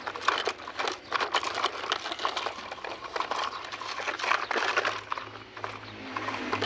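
A dense, irregular clatter of small clicks and crinkling.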